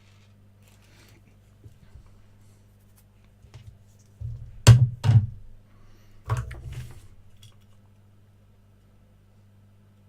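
Flush side cutters snipping electronic component leads: two sharp snaps about half a second apart near the middle, then another cluster of clicks about a second and a half later, each with a dull thud of handling on the bench. A steady low hum runs underneath.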